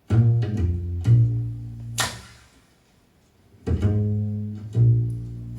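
Instrumental opening of a song: low plucked string notes, guitar and bass, each ringing and fading. They come in two groups with a nearly silent pause in the middle.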